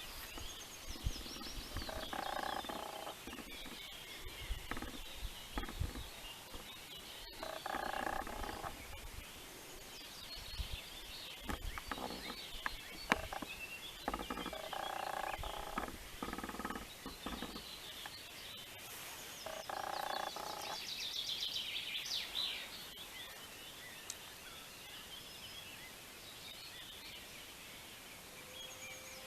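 Frogs croaking, a series of calls about a second long and a few seconds apart, with small birds chirping higher up and a quick high trill just past the middle.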